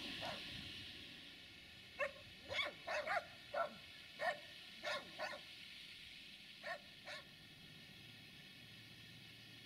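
A dog barking about ten times, some barks in quick pairs, between about two and seven seconds in.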